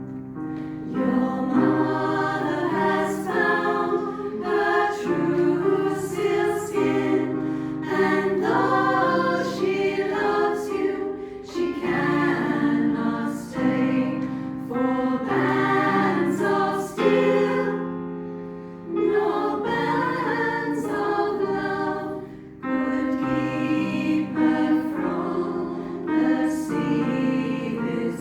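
Several voices singing together in choir-like harmony, holding long notes in phrases with brief breaths between them, with no clear words.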